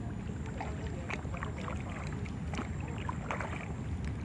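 Kayak paddles dipping and splashing in the water, with a steady low wind rumble on the microphone.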